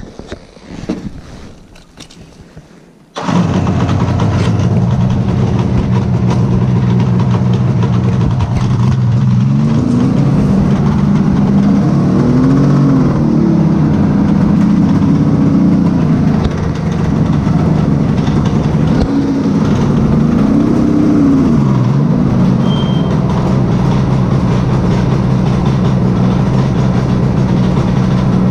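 Suzuki GT750's two-stroke three-cylinder engine idling, loud and steady. It cuts in suddenly about three seconds in. Its pitch rises and falls in short blips of the throttle around the middle.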